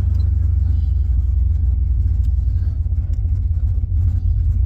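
LS V8 engine in a swapped Chevy truck running steadily, a loud low exhaust rumble with a fast even pulse and no revving.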